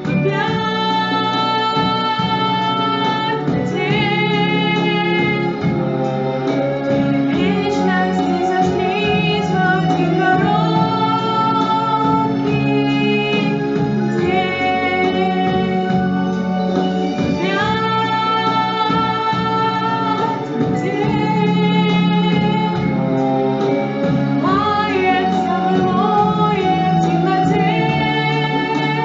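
Music: a woman singing a slow song over a steady instrumental backing track.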